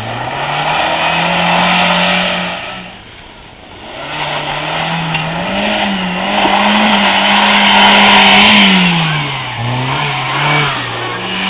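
FSO Polonez Atu's engine revved hard and held high while its rear tyres spin and squeal in a burnout: a rev of about three seconds, a brief dip, then a longer one of about five seconds that falls away, with a couple of shorter blips of throttle near the end.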